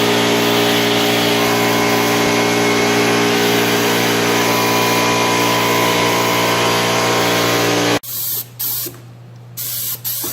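Automotive paint spray gun spraying with a loud steady hiss and hum, cut off suddenly about eight seconds in, then three short spurts as the trigger is pulled briefly.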